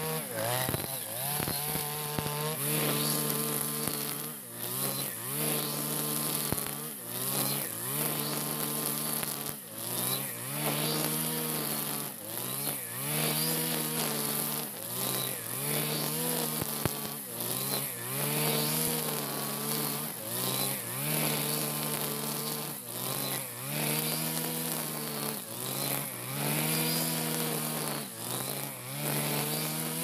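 Backpack brush cutter engine running at high revs while it cuts tall grass. Its pitch dips and climbs back about every two seconds as the cutting head sweeps through the grass.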